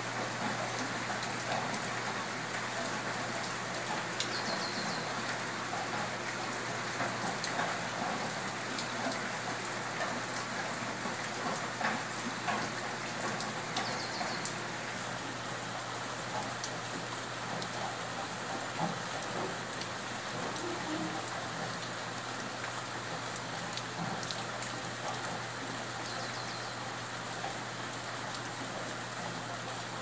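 Steady rain falling on trees and foliage: an even hiss of rainfall dotted with many small, close drop ticks.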